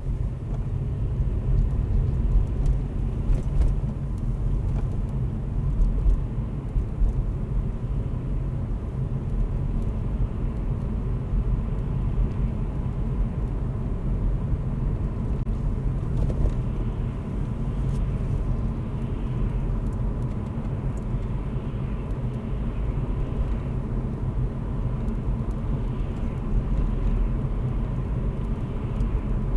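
Road and engine rumble inside the cabin of a 2016 Vauxhall Corsa 1.4-litre manual, steady and low, as the car speeds up from about 13 to 28 mph.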